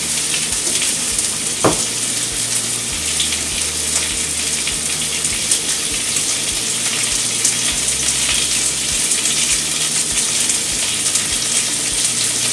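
Pork tenderloin searing in hot oil in a cast-iron skillet, a steady sizzle: the sound that shows the pan is hot enough for the meat to sear.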